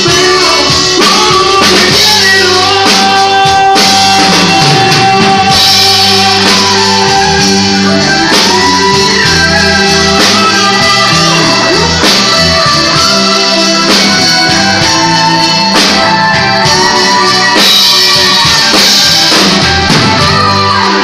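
Live band playing a song: electric bass, electric guitar and drums, loud and without a break.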